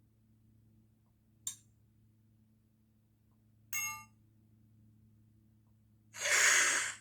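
Cell phone notification sounds played one after another: a brief high click about a second and a half in, a short ringing chime near the middle, then a louder hiss-like burst lasting most of a second near the end.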